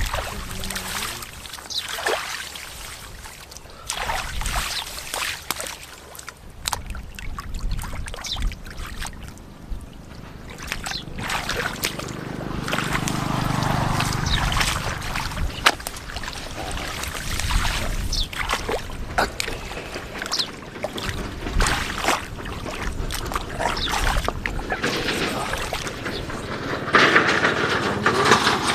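Shallow water splashing and sloshing, with many short irregular splashes.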